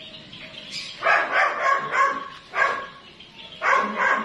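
Dog barking repeatedly in short barks, starting about a second in, with a brief pause in the middle.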